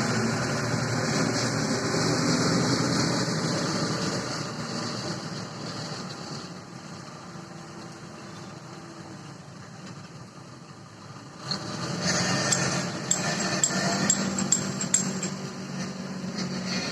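Backhoe loader's diesel engine running, dropping back in the middle, then picking up again about eleven seconds in with a series of sharp metallic clinks and knocks.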